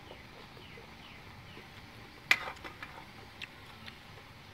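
Faint outdoor background with small birds chirping in short, falling calls repeated through it. A sharp click comes a little past two seconds in, followed by a few lighter clicks.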